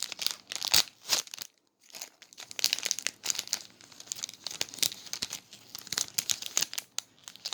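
Sticker packaging crinkling and rustling as it is handled, in rapid irregular crackles with a brief pause about a second and a half in.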